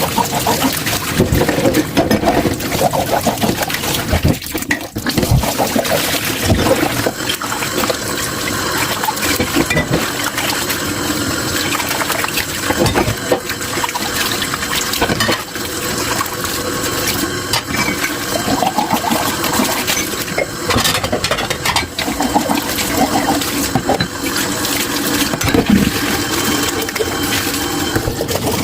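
Tap water running into a kitchen sink while dishes are washed, with a steady splashing and short clinks and knocks scattered throughout.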